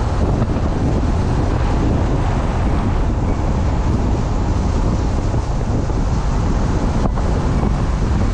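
A vehicle driving on a paved road: steady road and wind noise with a deep rumble, wind buffeting the microphone.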